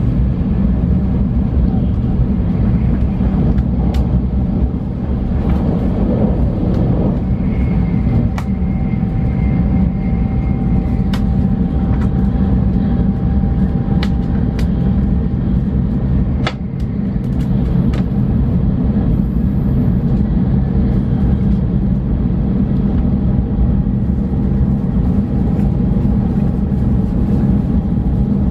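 Steady low rumble of a Shinkansen bullet train's passenger cabin as the train runs at speed. Sharp little ticks come every few seconds, and a faint steady whine comes and goes.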